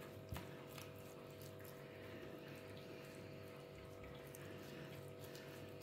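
Faint, soft wet dabbing and clicking of a silicone pastry brush spreading a paste of seasoning over raw pork ribs in a glass baking dish, over a steady low electrical hum.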